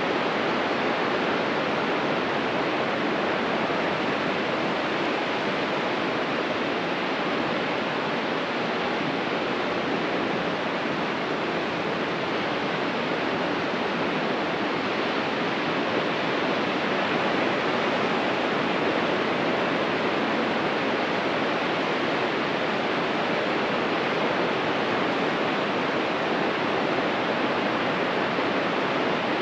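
Ocean surf washing on the beach as a steady, even hiss, with no single wave breaks standing out.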